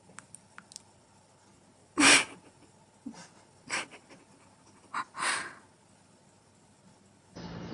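Cat hissing in four short, breathy bursts, the first and loudest about two seconds in and the last two close together near the five-second mark, with a few faint clicks before them.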